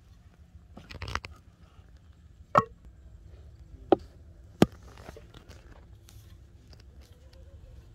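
Hollow knocks of bamboo tubes striking each other and a plastic basin as they are handled and set down: a quick cluster about a second in, then three single sharp knocks over the next few seconds.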